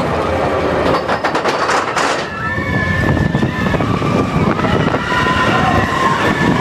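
Expedition Everest steel roller coaster train running along its track: a continuous rattle and rush of wind, with a burst of clattering about a second in, and long wavering high-pitched tones over it from about two seconds in.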